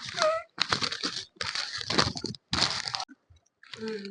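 Paper food wrapping crinkling and tearing in several short bursts as it is handled and opened.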